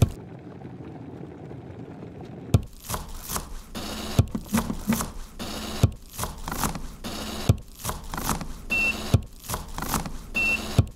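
Kitchen machine sounds: a sharp click at the start, a couple of seconds of quiet hiss, then a quick run of clicks and swishes over an on-and-off low motor hum. Two short high beeps come near the end.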